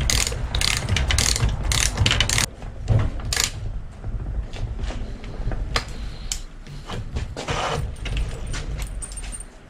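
Socket ratchet wrench clicking in quick, even strokes, about three a second, as a bicycle crank arm bolt is tightened onto a newly fitted bottom bracket. After about two and a half seconds it gives way to scattered metal clinks and knocks of tools and parts.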